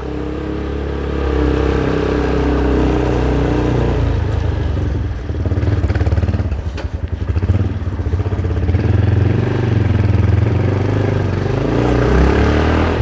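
Motorcycle engine running while riding, steady for the first few seconds, then dipping and changing pitch around the middle before picking up again.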